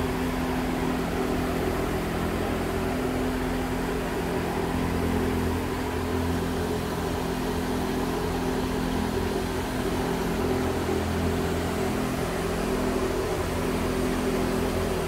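A machine running steadily: a low hum with several steady tones over an even hiss.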